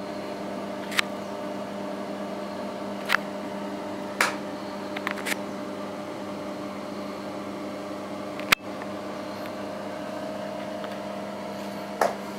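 A steady machine hum runs throughout, with a few sharp single knocks of a tool on broken concrete rubble, the loudest about eight and a half seconds in.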